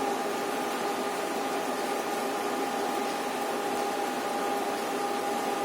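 Steady machine hum: an even hiss carrying a constant whine that does not change.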